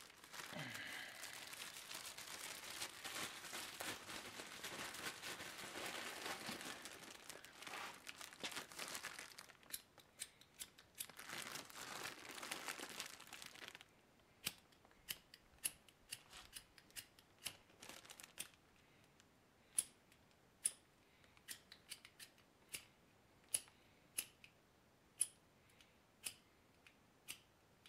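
Thin plastic bag and plastic glove crinkling as they are handled, for about the first fourteen seconds. After that, a series of sharp single clicks at uneven intervals, about one a second.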